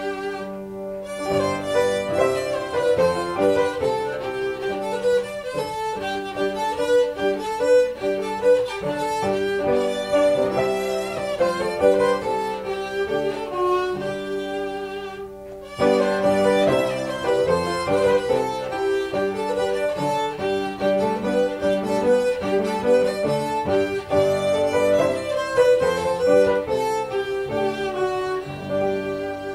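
A Renaissance branle dance tune played on a bowed Greek lyra with piano. A steady drone note sounds under the melody. About halfway through the music drops away briefly, then the tune starts again.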